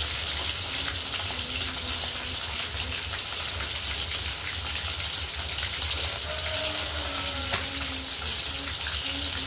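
Food frying in hot oil in a pan on a gas stove: a steady sizzle, with a low hum underneath.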